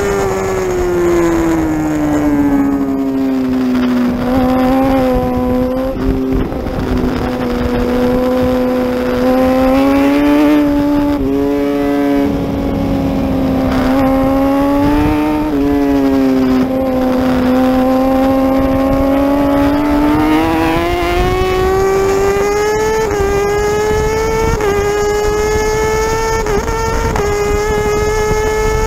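Racing superbike engine at high revs, heard from on board. Its pitch drops in the first few seconds as the rider brakes and downshifts into a slow corner, and it holds lower through the turn. From about two-thirds of the way in it climbs hard, with three quick upshifts, each a short dip in pitch.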